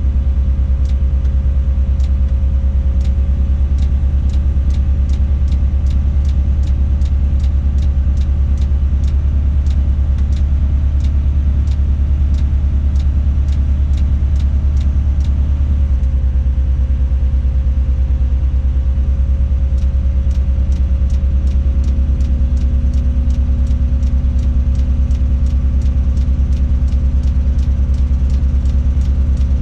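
Tadano 180G-5 all-terrain crane's diesel engine running, heard inside the operator's cab as a steady low drone with a thin whine over it and a regular light ticking about twice a second. The engine note shifts slightly about halfway through and again a few seconds later as the crane controls are worked.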